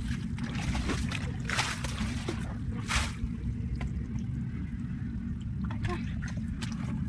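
Water splashing and trickling in a shallow, muddy rice-field puddle, with two louder splashes about a second and a half and three seconds in, over a steady low rumble.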